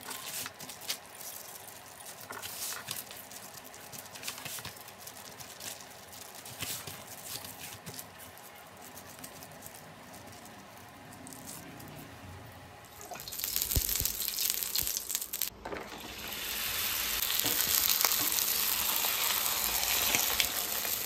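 Soft patting and rustling of hands pressing stuffed dough flat on a plastic sheet. About 13 seconds in, a loud steady sizzle starts as the bobbattu, a sweet stuffed flatbread, lands on a hot iron griddle; after a brief dip the sizzle runs louder.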